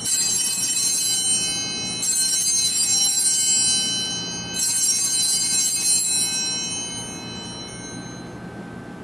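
Altar bells rung three times as the chalice is elevated after the consecration. Each ring is a bright, high jingle that fades slowly, and the last one dies away a few seconds before the end.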